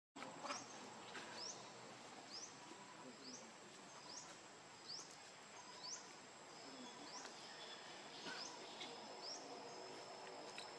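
Faint outdoor wildlife ambience: a short, high, rising chirp repeated about once a second over a steady high insect whine and light background hiss.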